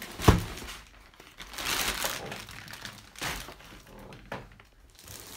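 Clear plastic bag crinkling as it is pulled off a benchtop oscilloscope, in several bursts of rustling, with a sharp knock just after the start.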